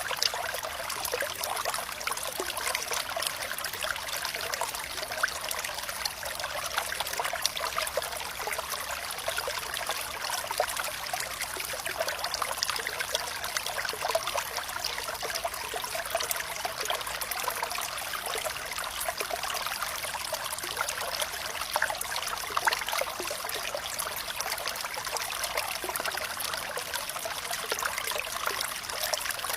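Water flowing and trickling steadily, with a constant patter of small splashes and drips. The sound is bright and thin, with almost no bass.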